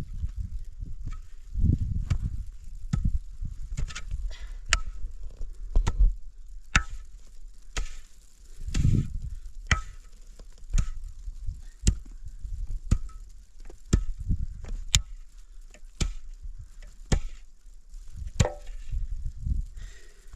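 Repeated chopping strikes of a hand tool, about one a second, each a sharp knock with a dull thud under it.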